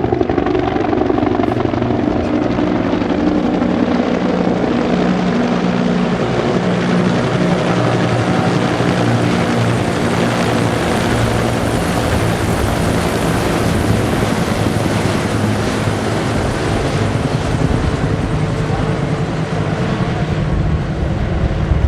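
A formation of military helicopters flying past, with steady rotor and turbine noise. The higher rushing part of the sound swells to a peak about halfway through as the formation passes overhead, then fades.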